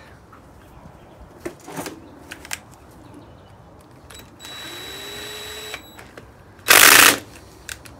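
Cordless drill-driver with a T30 Torx bit running a captive bolt into a high pressure fuel pump housing: after a few small handling clicks, the driver whines steadily for about a second and a half, its pitch rising a little, then gives a loud, noisy burst of about half a second near the end.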